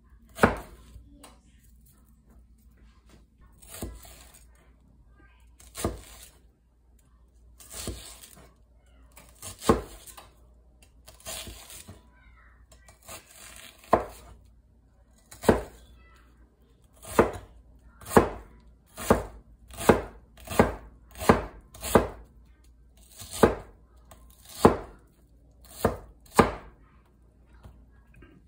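Chef's knife cutting a red onion on a white plastic cutting board: sharp knife strikes on the board, a couple of seconds apart at first with some longer slicing scrapes, then quicker, about one or two a second, in the second half.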